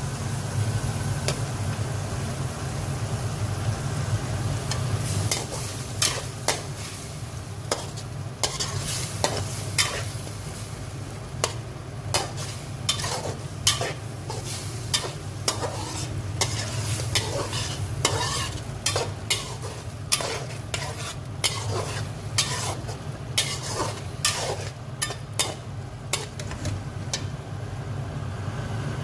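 A perforated metal skimmer stirring and scraping chicken in sauce around a metal kadhai, with many irregular sharp clicks and scrapes of metal on metal that start about five seconds in, over the sizzle of frying. A steady low hum runs underneath.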